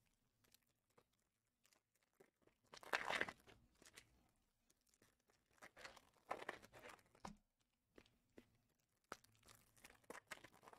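Faint crinkling and tearing of Panini Optic trading-card pack wrappers being opened by hand, in short bursts, loudest about three seconds in, with a few light clicks near the end.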